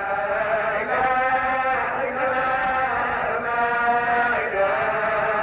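Sufi zikr chanting: a melodic religious chant of long held notes that shift pitch every second or so.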